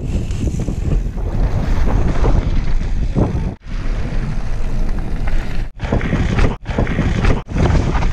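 Wind buffeting an action camera's microphone during a fast mountain-bike descent, with the low rumble of tyres over a dirt trail. The noise breaks off sharply four times.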